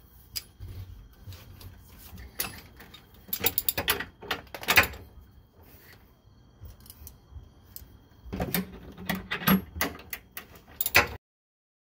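A wrench clicking and clinking on the bolt and nut of a rear shock absorber's mount as it is tightened, in several clusters of sharp metal clicks.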